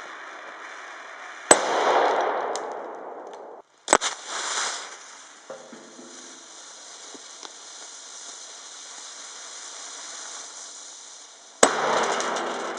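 TLSFX ring-pull airsoft pyrotechnic grenade exploding: three sharp bangs, about a second and a half in, about four seconds in and near the end, each trailing off over a second or two.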